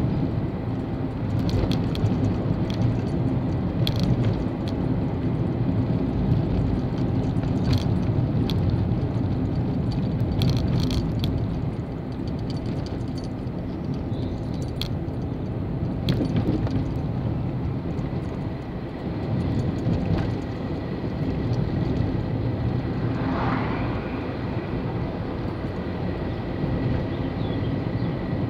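Steady engine and tyre noise of a compact car being driven, heard from inside the cabin, with scattered light rattles and clicks.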